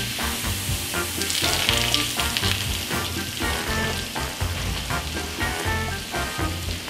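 Coca-Cola sizzling and boiling on the hot plate of an electric crepe maker, the hiss swelling for a second or so from about a second in. Background music plays along with it.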